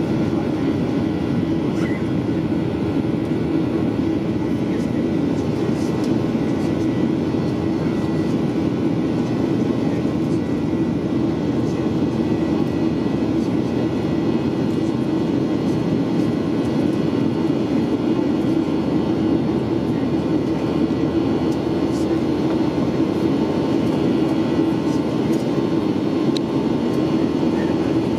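A Boeing 737-800's CFM56-7B turbofan engines running at climb power shortly after takeoff, heard inside the cabin. It is a steady, unbroken engine noise with a strong low hum.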